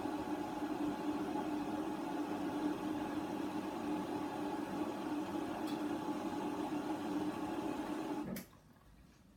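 Hoover washer dryer running early in its wash cycle: a steady hum with a hiss over it, which cuts off suddenly with a click about eight seconds in.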